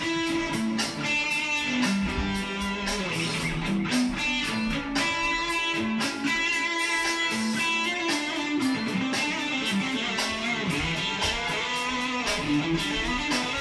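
Stratocaster-style electric guitar playing an improvised rock-fusion solo of quick single-note lines full of chromatic runs.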